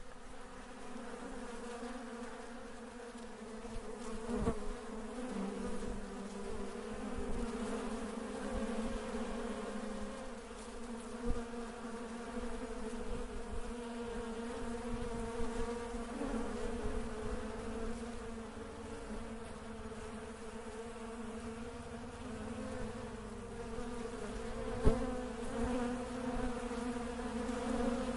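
Honey bees buzzing steadily, a dense drone that wavers slightly in pitch and loudness. A few brief knocks stand out over the buzz, the sharpest near the middle and near the end.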